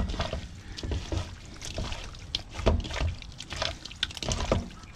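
Hands mixing wet, seasoned fish fillets in a plastic bowl with some water in the bottom, making irregular wet squishing and sloshing.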